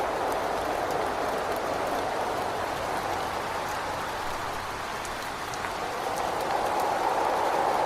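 Steady rain with wind: an even hiss that eases a little midway and swells again near the end, with scattered faint drop ticks.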